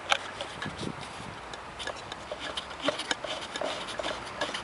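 Scattered light clicks, knocks and rubbing close to the microphone, from the camera being handled and settled on a tripod; no engine is running yet.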